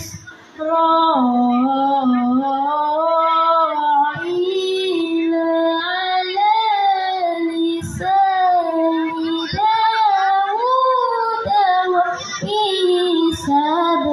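A child reciting the Quran in the melodic tilawah style: long held notes with ornamented turns, broken by short pauses for breath between phrases.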